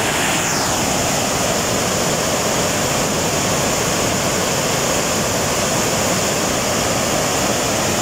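Swollen, muddy waterfall rapids pouring over rocks: a loud, steady rush of white water.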